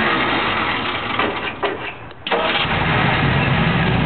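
An old vehicle's cold engine is cranked over on the starter and tried. The sound breaks off briefly about two seconds in, then starts again with a deeper rumble.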